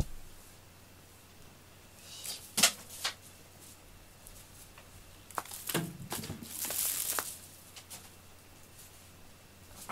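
Scattered light taps, clicks and rustling: a few sharp taps between two and three seconds in as a string cat-teaser toy is drawn off a play mat, then a longer rustle with clicks from about five and a half to seven and a half seconds in.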